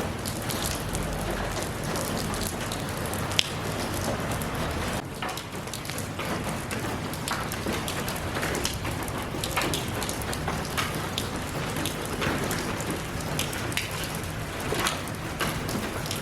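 Steady rain falling on hard surfaces, with individual drops ticking and one sharper tick about three seconds in.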